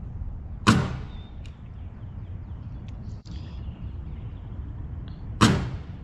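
Nail gun firing twice, about five seconds apart: two sharp shots, each driving a nail through a wooden girt into the barn's timber frame. A low rumble of wind on the microphone runs underneath.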